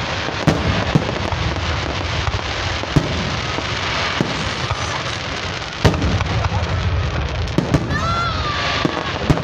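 Aerial firework shells bursting overhead: sharp bangs every second or two over a steady rumble and hiss.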